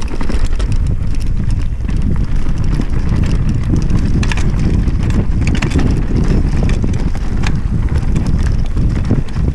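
Mountain bike descending a dirt forest trail at speed: a steady rumble of wind buffeting the action-camera microphone and tyres rolling over dirt, broken by scattered sharp clicks and rattles of the bike over roots and stones.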